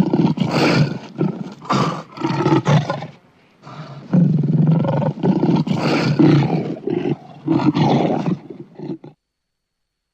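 Asiatic lion roaring in a run of loud, repeated calls, with a short lull about three seconds in; the sound cuts off abruptly about nine seconds in.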